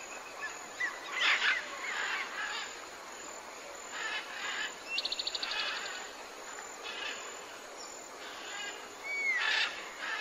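Several birds calling and chirping, with a fast even trill about five seconds in and a short falling whistle near the end, over a faint steady high-pitched tone.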